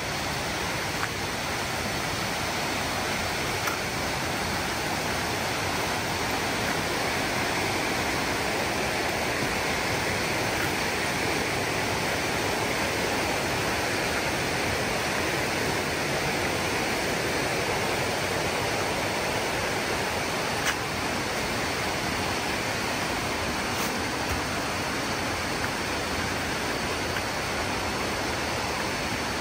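Steady rushing water: a continuous, unchanging hiss of falling or flowing water.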